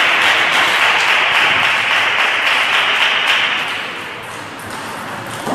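Spectators clapping after a table tennis rally, dying away about four seconds in.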